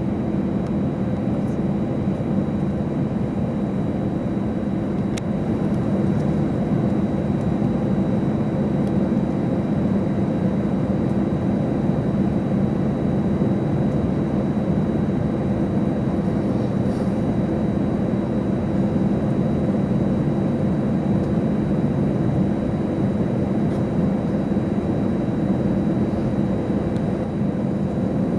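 Steady cabin noise inside an Airbus A321 taxiing on the ground: its jet engines hum at low power, with a faint high whine throughout and no change in level.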